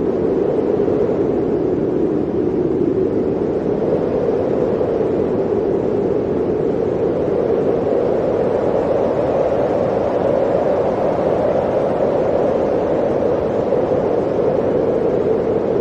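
Blizzard wind blowing steadily, a dense rushing noise with a low howl that swells and rises slightly in pitch about halfway through, then settles.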